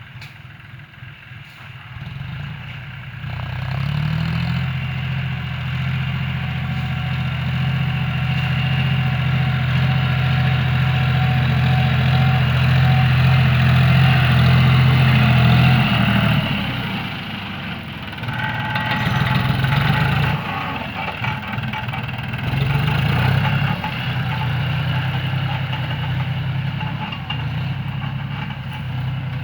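New 45 hp John Deere tractor's three-cylinder, non-turbo diesel engine running at a steady speed. It grows louder over the first few seconds, then turns uneven about halfway through, rising and falling.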